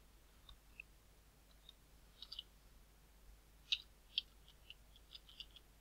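Computer keyboard keys tapped faintly as a short string of characters is typed: a dozen or so irregular clicks with short pauses between them, a few bunched together near the end.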